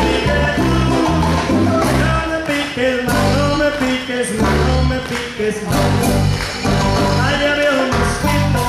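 Live band playing upbeat Latin dance music, with a steady repeating bass line and a marimba among the instruments.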